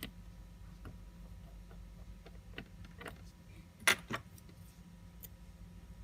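Small metal tools clicking and tapping on a watch movement during disassembly: a few light clicks, with a sharper double click about four seconds in, over a steady low hum.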